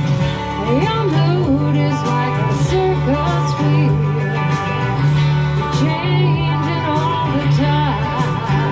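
Live band music: a steady held bass line under repeated cymbal hits, with a bending lead melody line over them.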